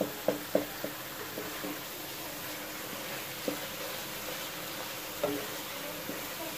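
Chicken and onion-tomato masala sizzling in a wok while a wooden spatula stirs it, knocking against the pan several times in the first second and twice more later.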